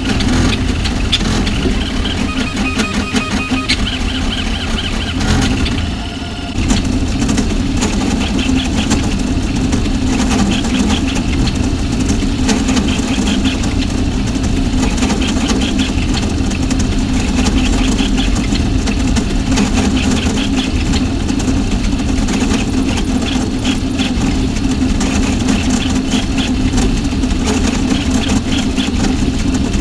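VzBot 3D printer running a print: a steady hum of its fans with the stepper motors chirping and whining in quick, irregular runs as the toolhead darts around.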